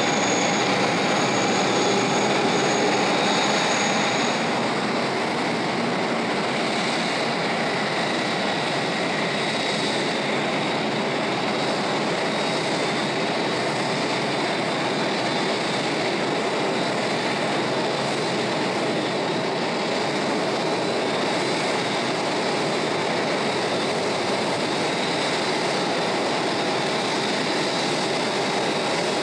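Airbus A380's jet engines running at low thrust as it taxis: a steady jet rush with a high whine that fades about four seconds in.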